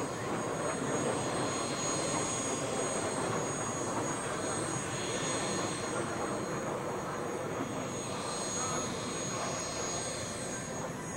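Kawasaki T-4 jet trainers heard from the ground, a steady distant jet-engine noise with no rise or fall.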